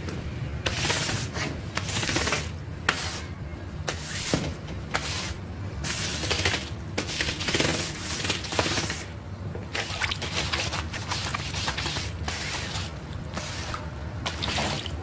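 A long-handled scraper with a metal blade repeatedly dragged across a muddy rug, each stroke a short rasping scrape ending in a click or knock, about one stroke a second.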